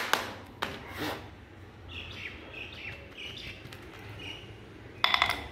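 The last couple of hammer taps on a flat metal tool driven into the sand mold, loosening the packed sand around the small brass casting. Then small birds chirp for a few seconds, and there is a brief clattering rattle near the end.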